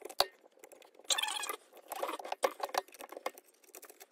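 Light clicks and scratchy rustling of fingers handling the wires and metal end housing of a garbage disposer's electrical box.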